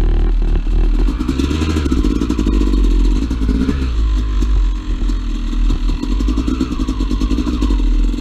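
Two-stroke dirt bike engine under way, its pitch rising and falling as the throttle opens and closes, with a steady rattle of small knocks from the bike over rough ground.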